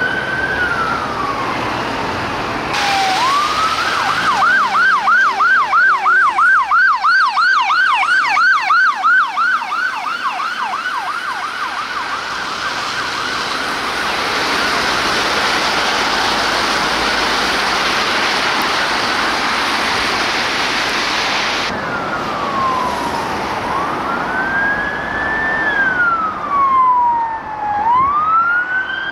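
Emergency vehicle siren: a slow rising-and-falling wail that switches a few seconds in to a fast yelp of about four sweeps a second. The yelp gives way to a steady rushing noise for about ten seconds, and the slow wail returns near the end.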